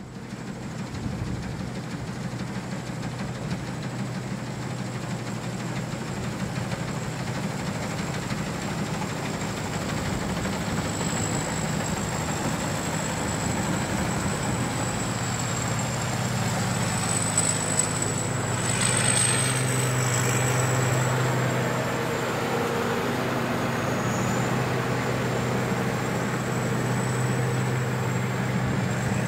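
Tracked rice combine harvester running steadily under load, its engine joined by a thin high whine, growing louder through the first half as it comes closer.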